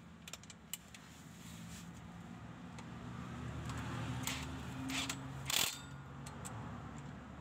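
Faint metallic clicks and light scrapes of flywheel bolts being fitted by hand at the centre of a car's flywheel, over a low steady hum.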